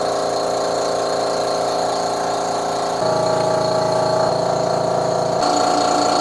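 Vacuum pump running steadily to hold a granite seam setter's suction cups to the countertop, a constant motor hum that shifts slightly in level and tone about three seconds in and again near the end.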